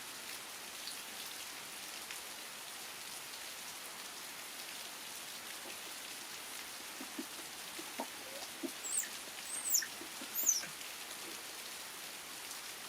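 Steady rain falling, with a few short, high, squeaky gliding calls from about two-thirds of the way in.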